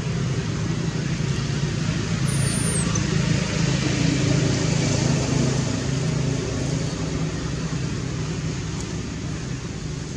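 Road traffic: a motor vehicle's engine rumble with tyre noise. It swells about four seconds in and then slowly fades, like a vehicle passing by.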